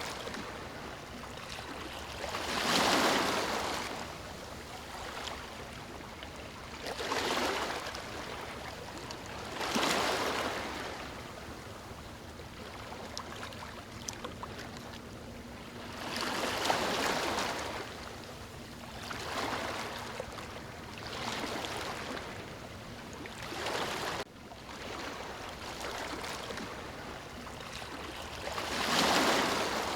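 Ocean surf: waves breaking and washing up the shore in swells every few seconds, with a steady wash of water between them.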